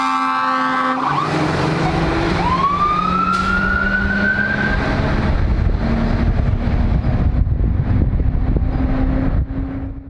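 Fire rescue truck's electronic siren cuts off about a second in, leaving its diesel engine pulling away with a steady low rumble. A single rising whine climbs for a couple of seconds.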